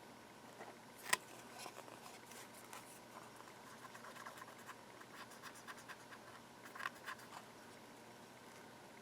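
Faint scratching and clicking of small hand-tool work on a circuit board, with a sharp click about a second in and a run of light ticks and scrapes after it.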